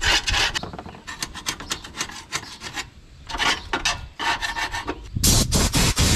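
Hand scraping and rubbing strokes on the steel angle iron battery brackets of an electric golf cart's battery bay, cleaning off rust and dirt so the batteries sit flat; the strokes come irregularly. About five seconds in, a much louder, steady rushing noise starts suddenly.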